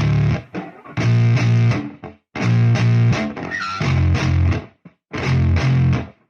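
Background music: distorted electric guitar chords played in short chopped phrases that cut off abruptly, with no vocals.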